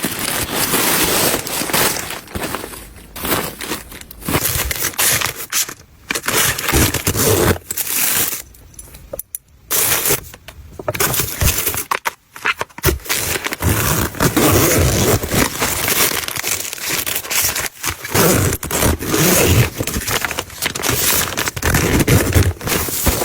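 Close-up crinkling, rustling and scraping of packaging being handled and unwrapped, in uneven stretches broken by brief pauses.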